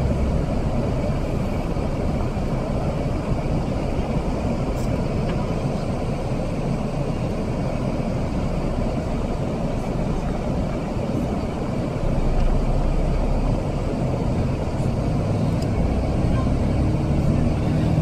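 Moving bus heard from inside the cabin: a steady rumble of engine and tyre road noise, which grows a little louder and deeper about two-thirds of the way through.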